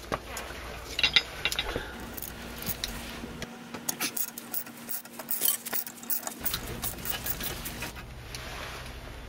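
Hand ratchet with a hex-bit socket turning a bolt on a car's steering knuckle: a run of light metallic clicks and clinks.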